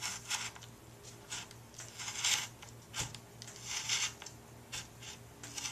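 Razor knife slicing and scraping through woven fiberglass cloth wetted with still-green, part-cured epoxy, trimming the overhang along the edge. It comes as a string of short scratchy cuts, the longest about two seconds in and again around four seconds in, over a faint steady hum.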